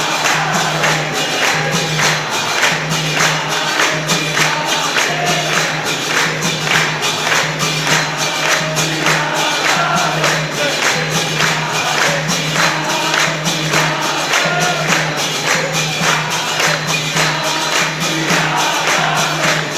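A temple congregation sings a Hindu aarti together, clapping in time with jingling percussion to a quick, steady beat.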